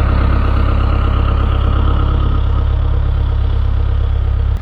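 An engine running steadily at idle, deep and even, cutting off suddenly at the end.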